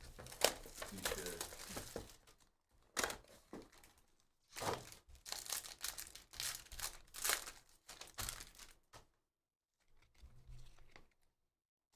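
A Bowman University Chrome hobby box torn open by hand and a card pack's wrapper ripped and crinkled: a run of tearing and rustling noises that stops about nine seconds in, followed by faint handling of the cards.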